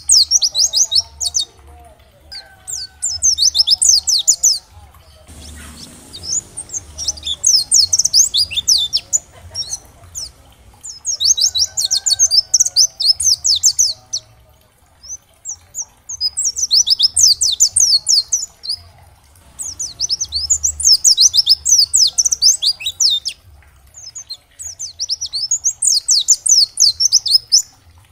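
Pleci (white-eye) singing in rapid, high twittering phrases of one to three seconds each, repeated after short pauses.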